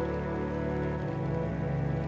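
Background music: slow, sustained ambient instrumental with held tones over a low bass line.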